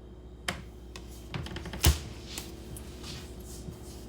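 Tarot cards being handled on a table: a few light taps and clicks, the loudest about two seconds in, over a faint steady hum.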